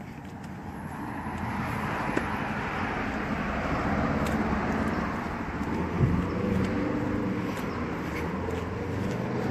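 Road traffic: a steady rush of passing cars that grows louder over the first couple of seconds, with a single sharp knock about six seconds in.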